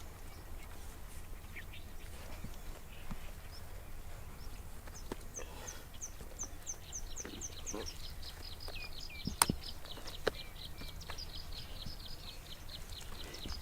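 A small bird singing a fast run of short, high, falling chirps, several a second, that turns into a quick high trill from about the middle onward. There is one sharp click about nine seconds in.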